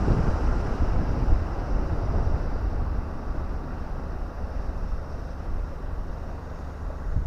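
Wind buffeting the microphone: a steady low rumble, loudest in the first couple of seconds and easing off after.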